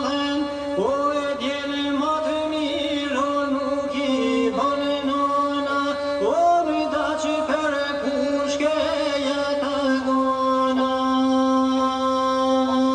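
A man chanting a song to his own lahuta, the one-string bowed fiddle of northern Albania: a gliding, bending melody over a steady low note, settling into one long held note for the last few seconds.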